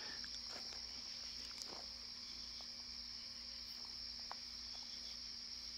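Steady high-pitched chorus of night insects such as crickets, with a few faint clicks.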